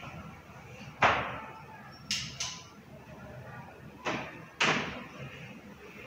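Separate knocks and clatters from someone handling things in a room with a light echo: a loud knock about a second in, two sharp clicks about two seconds in, then two more knocks past the middle.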